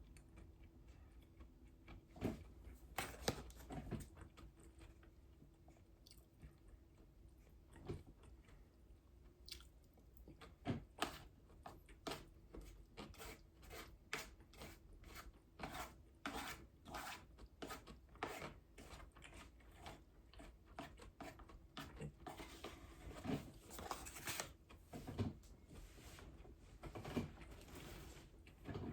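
A person eating: chewing with irregular crisp crunches, coming more often from about ten seconds in.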